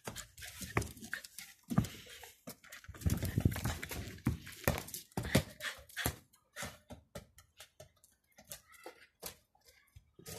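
Irregular clicks, scuffs and light knocks of a Pomeranian scrabbling after a small ball on stone patio paving, busiest about three to five seconds in.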